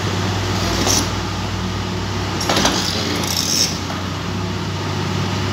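Komatsu hydraulic excavator's diesel engine running with a steady low hum. Short hissing bursts come about a second in and again between about two and a half and three and a half seconds.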